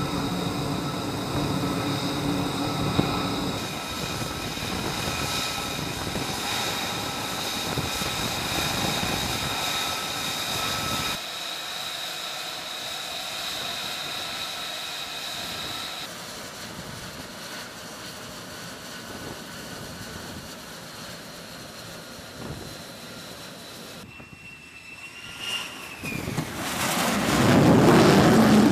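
Jet engines running on an aircraft carrier flight deck: a steady high whine from idling, taxiing F-35C fighters that changes abruptly at several cuts. A much louder rush of jet noise swells up over the last couple of seconds.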